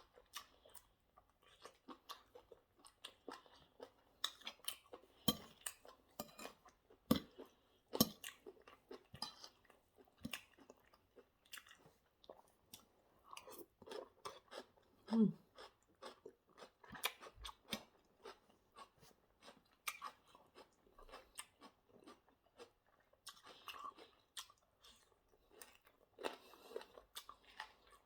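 Close-miked chewing and crunching of chicken wings and salad, in many irregular small crunches and wet clicks, with a short falling hum about halfway through.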